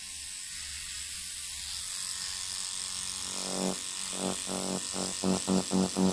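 Stingray rotary tattoo machine running with a fine steady buzz while shading on synthetic skin; about halfway through a low hum begins pulsing about four times a second.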